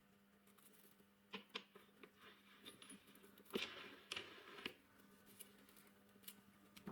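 Faint clicks and light rattling of small objects being handled, with a short scraping rustle about halfway through, over a faint steady hum.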